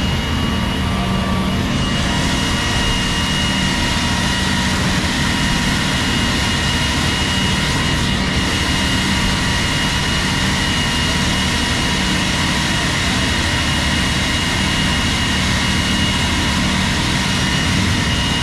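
A steady mechanical drone with a constant high whine over a low hum, holding at one level without revving or pausing.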